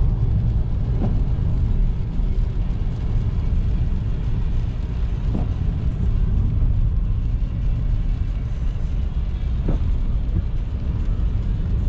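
Road noise of a car driving, heard from inside: a steady low rumble with a hiss above it.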